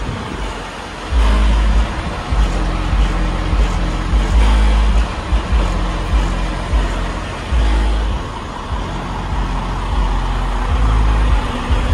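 Music played through four Skar SDR 12-inch subwoofers in a semi truck, heard from outside the truck: deep bass notes hit in long, repeated blocks, with the rest of the song thinner above them.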